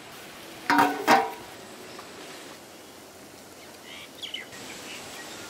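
A cover put on the bowl of marinating octopus: a short clatter with a brief ringing tone about a second in. A few faint bird chirps follow near the end.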